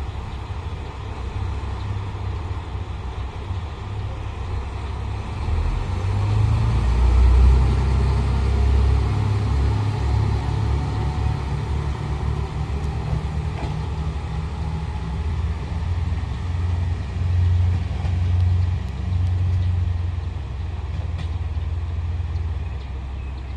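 Diesel engines of JR Kyushu KiHa 200 series railcars running at a station platform: one railcar idles steadily while the other throttles up and pulls away, its engine rising in loudness about six seconds in and loudest around seven to eight seconds.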